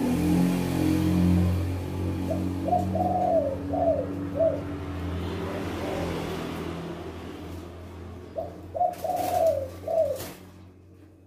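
Spotted doves cooing. The song is the 'kuk 2' type, phrases of a few short notes ending in two clipped 'kuk' notes, heard twice: about two seconds in and again about eight seconds in. A low steady hum runs underneath and fades away near the end.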